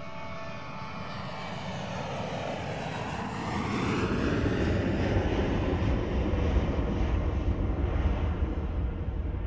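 Jet airliner flying overhead: a rushing noise builds, its pitch sweeps downward about three to four seconds in as it passes, and a deep rumble then holds at its loudest to the end.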